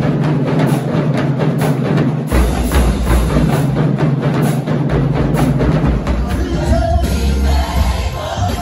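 Live church band music with a fast, busy drum beat over long held bass notes. A woman's singing voice comes in near the end.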